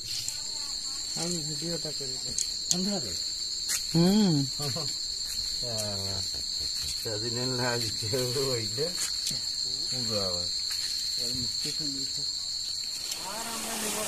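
Insects trilling in one steady, high-pitched note that runs without a break and stops near the end, over men's voices talking.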